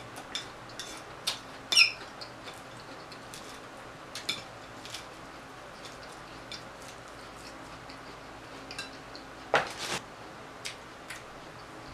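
A metal fork clinking and scraping in a glass salad bowl as leafy greens are stirred: a scattering of short, sharp clicks and squeaks, with a louder double knock about ten seconds in.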